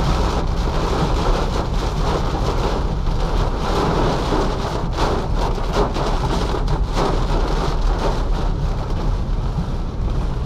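Heavy rain drumming on a car's roof and windscreen, heard from inside the cabin, as a dense, steady hiss over a low rumble.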